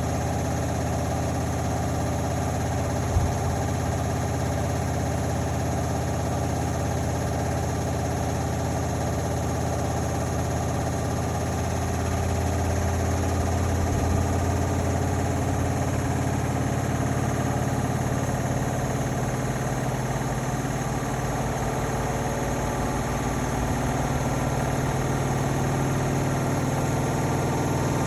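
Indesit Innex BWE 91496X front-loading washing machine running, a steady motor hum with vibration. There is one sharp knock about three seconds in, and the low hum grows stronger about twelve seconds in.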